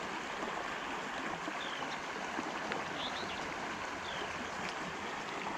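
Flowing stream water, a steady rush, with a few short, high, falling chirps over it.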